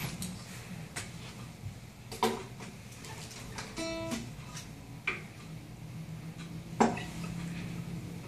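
Classical guitar being tuned: a few separate strums and a single plucked note ringing out, with pauses between them while the tuning pegs are turned. The loudest strum comes about seven seconds in.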